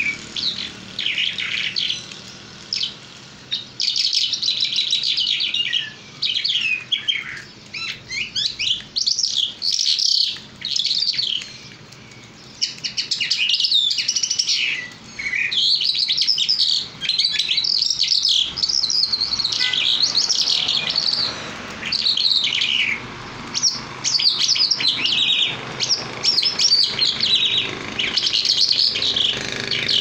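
A caged songbird singing long runs of rapid chirping, warbling phrases, with short pauses between bursts.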